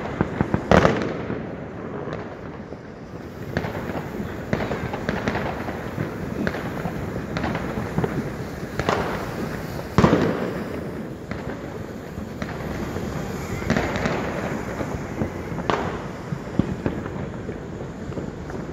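New Year's Eve fireworks and firecrackers going off all around: a continuous crackle of bangs near and far, with sharp, loud bangs about a second in and again about ten seconds in.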